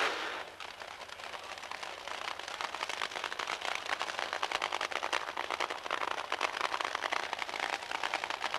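Top Fuel dragster's nitro-burning engine running down the track away from the start: its launch roar drops off at once, leaving a dense, rapid crackle that grows somewhat louder after about two seconds.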